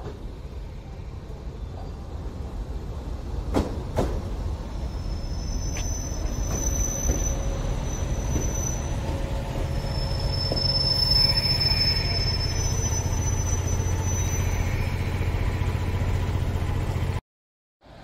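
Train running close by: a steady low rumble building up, two sharp clicks about four seconds in, and thin high wheel squeals from about six seconds on. The sound cuts off suddenly near the end.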